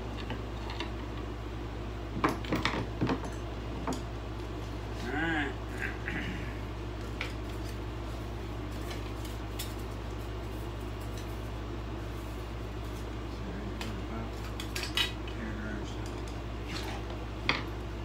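A steady low hum with scattered light clinks and clatters of small hard parts being knocked about, the sharpest a little after two seconds in, near fifteen seconds and just before the end, and a short squeaky sound about five seconds in.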